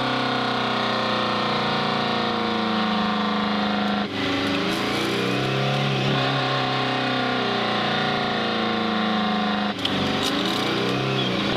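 A log truck's diesel engine running hard, with two brief dips about four and ten seconds in where the engine pitch shifts.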